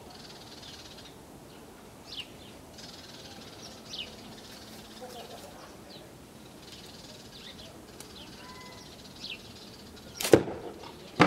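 A slingshot with Alliance file bands is shot near the end: one sharp snap as the bands release a 75-calibre lead ball, then a second, shorter crack about a second later. Before it, only faint scattered bird chirps.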